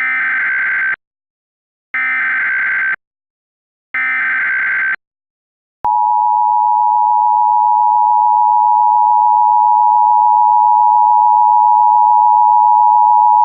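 Emergency Alert System header for a Child Abduction Emergency: three one-second bursts of the SAME digital data tones, two seconds apart, then about six seconds in the loud, steady two-tone EAS attention signal starts and holds.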